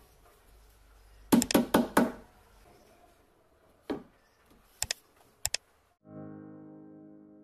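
Sharp clicks and knocks of clear plastic shelf-support pins being fitted into drilled holes in a wooden cabinet panel: about five in quick succession, then a few more singly. A sustained music chord comes in near the end.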